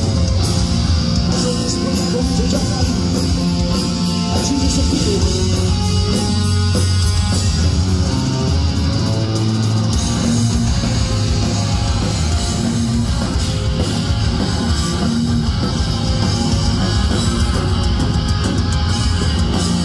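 Punk rock band playing loud and steady on electric guitars, bass guitar and a drum kit, heard live from the crowd.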